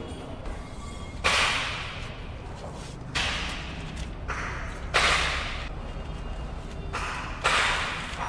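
Masking tape pulled off the roll in short rips, about five times roughly every two seconds, each starting sharply and trailing off, as newspaper is taped over a car bumper to mask it for painting.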